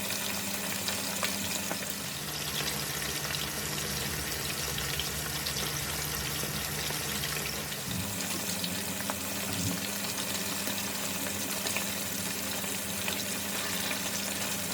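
Chicken pieces frying in hot vegetable oil in a pan: a steady sizzling hiss with scattered crackles. A low hum joins about two seconds in and stops about eight seconds in.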